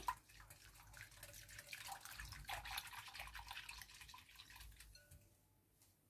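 Silicone-coated balloon whisk beating a thin, milky custard mix in a glass bowl: faint, rapid liquid sloshing and dripping that stops about five seconds in.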